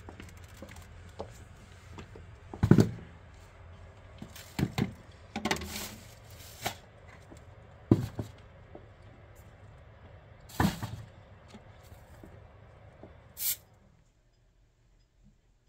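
A large plastic tub being handled and set down: irregular knocks and thumps with rustling in between. The loudest knock comes about three seconds in, a sharp high scrape comes near the end, and then it goes nearly silent.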